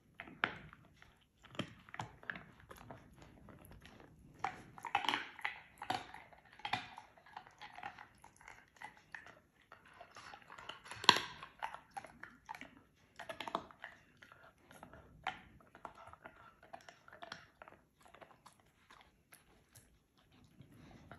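A giant schnauzer crunching a bone: irregular cracks and crunches. The loudest crack comes about eleven seconds in.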